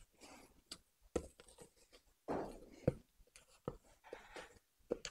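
Spatula scraping and folding macaron batter in a stainless steel mixing bowl, heard as a series of short, faint scrapes and soft knocks: the batter is being worked until it drips slowly off the spatula.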